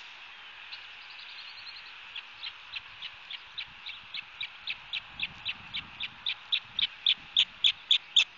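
Osprey giving a rapid series of sharp, high chirps, about four a second, which starts about two seconds in and grows louder toward the end: the osprey's alarm call. A steady hiss lies underneath.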